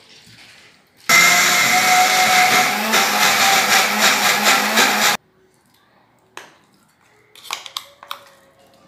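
Miyako mixer-grinder with a small stainless-steel jar running for about four seconds, dry-grinding masoor and khesari dal with rice to a coarse, half-broken meal. It starts abruptly and cuts off sharply.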